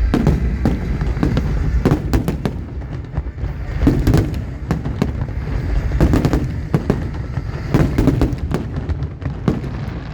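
Aerial fireworks display: shells bursting with deep booms about every two seconds, with many sharp cracks and crackles in between.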